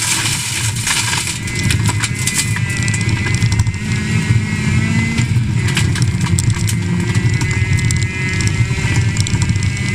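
Rally car engine running hard under load, heard from inside the stripped cabin, with gravel and small stones clattering against the underbody. The engine note shifts about five seconds in.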